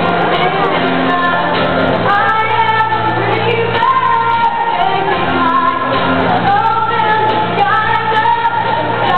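A singer performing a pop song live with guitar accompaniment, holding several long notes over steady low notes, echoing in a large gymnasium.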